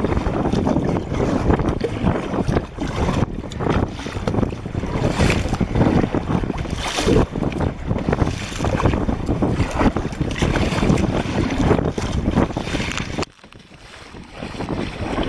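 Sea kayak being paddled through open water, with water splashing and sloshing against the hull and heavy wind buffeting the microphone. Near the end the noise drops sharply, then builds up again.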